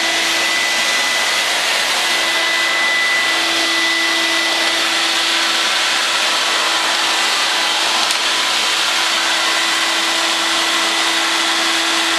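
Canister vacuum cleaner running steadily: a constant rushing hiss with a steady hum in it.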